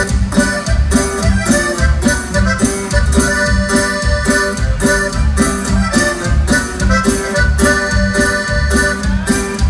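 Norteño music: an accordion playing the melody over a steady, loud bass and drum beat.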